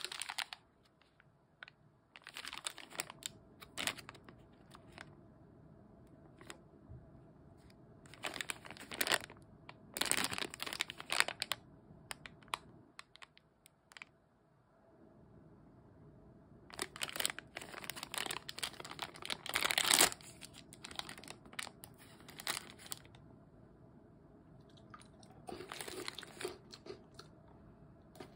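Small plastic Maltesers packet crinkling and crackling in the hands in repeated bursts as it is handled and torn open, the loudest burst about twenty seconds in.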